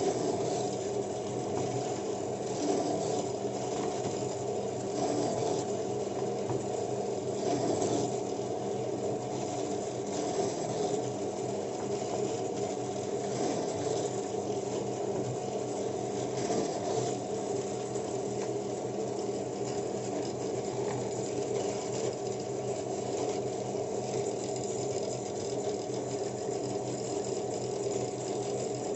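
Small electric woodworking power tool running steadily, its motor hum even throughout, with light irregular cutting or rubbing noise over it.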